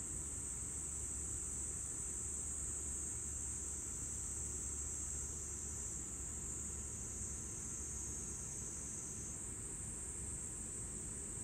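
Compressor cooler box running with a steady low hum, under a continuous high-pitched insect chorus like crickets that shifts slightly near the end.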